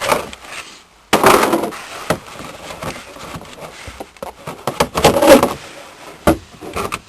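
Clattering, knocking and rattling of plastic and metal as a Kicker 3.5-inch dash speaker is worked loose and pulled out of its mount. There are two louder bursts of clatter, about a second in and around five seconds in, and a few sharp clicks near the end.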